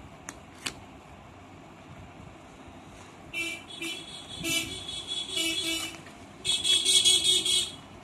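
Vehicle horns honking in several blasts from about three and a half seconds in, the longest and loudest near the end, each at the same steady pitch. Before them, two light clicks from a cardboard box being handled.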